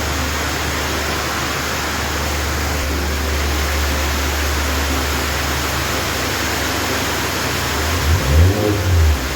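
Car engine idling steadily, then blipped with the throttle in short revs near the end. This is a check of the ignition coils for an intermittent misfire that shows up when the engine is revved.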